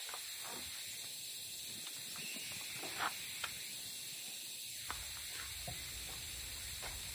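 Air hissing at a planter tire's valve stem for a couple of seconds, with a few small clicks of the fitting against the stem.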